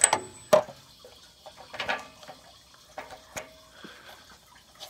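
A few sharp metallic clicks and knocks from a chrome socket being turned by hand on a water heater's anode rod fitting and set down on the steel tank top. The loudest knock comes about half a second in.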